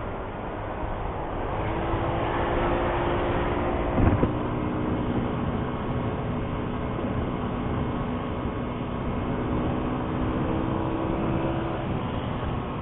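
Motorcycle engine running at speed over a rush of road and wind noise, its note holding steady with slight rises and falls. A short loud thump comes about four seconds in.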